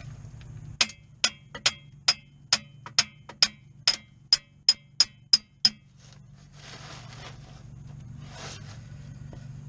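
About a dozen sharp metal-on-metal clicks, evenly spaced at roughly two to three a second, from hand tools working on a tractor's lift arm housing, followed by a few seconds of soft scraping and rustling.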